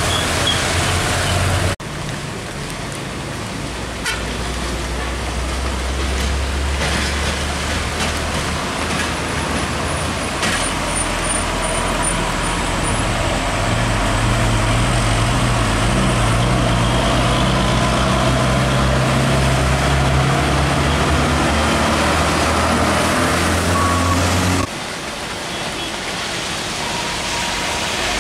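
Heavy diesel trucks passing on a wet road: a low, steady engine drone under the hiss of tyres on wet asphalt. The sound changes abruptly about two seconds in and again near the end, as one truck gives way to the next.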